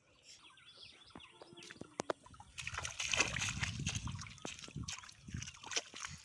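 Shallow paddy-field water and mud splashing and sloshing as an aluminium pot is lifted out of the water and bare feet wade through it. A single sharp tap comes about two seconds in, and the splashing starts about half a second later.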